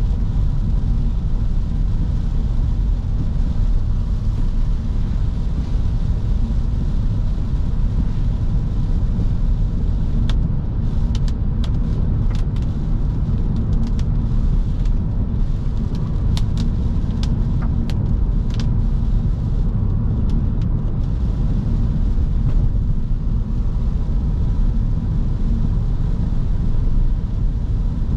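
Steady in-cabin drone of a 2009 Audi S5's V8 engine and its tyres on a wet road, cruising without revving. A scattered run of sharp ticks comes through in the middle.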